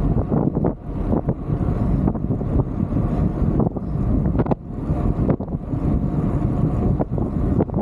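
Wind buffeting a bike-mounted camera's microphone while cycling at speed into a headwind: a loud, gusty rushing noise with a few brief dips.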